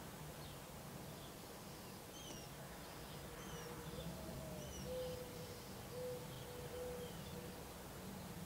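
Faint, high peeping of Gambel's quail chicks: short down-slurred chirps, roughly one a second. A faint steady low hum comes in during the middle.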